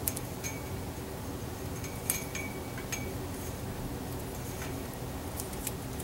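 Light metallic clinks and taps on a metal antenna mast pole as a coax feed line is handled and taped to it, about half a dozen, several with a short ring. A steady low hum runs underneath.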